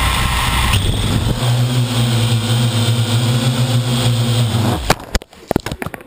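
Parrot AR.Drone quadcopter's four electric motors and propellers running, heard close up from a camera on its hull, settling into a steady hum. The hum cuts off about five seconds in, followed by a quick run of sharp knocks and clatter.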